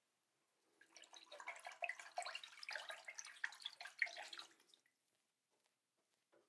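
Tap water running and splashing in a small sink for about four seconds, starting about a second in, as a safety razor is rinsed between shaving passes.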